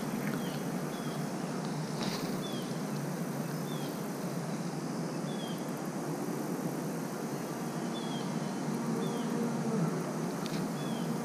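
Outdoor ambience: a steady low background noise with a short, high, slightly falling chirp repeating every second or so.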